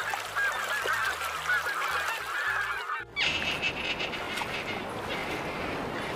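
A flock of domestic geese honking and calling over one another, many short overlapping calls. About three seconds in it cuts off suddenly and gives way to a steady rushing noise with a thin, high-pitched call over it.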